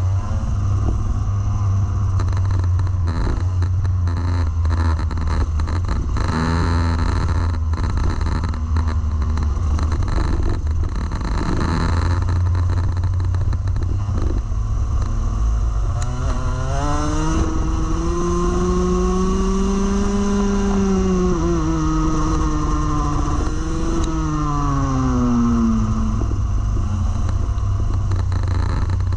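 Rotax Max Evo Senior 125 cc two-stroke kart engine racing, heard from on board over a heavy low rumble. Partway through the engine note climbs steadily on the throttle, holds high, then drops off for the next corner.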